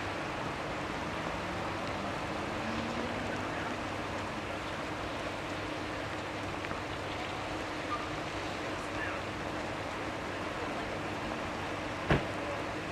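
Steady rushing wind noise with a faint low steady hum under it, and a single sharp click about twelve seconds in.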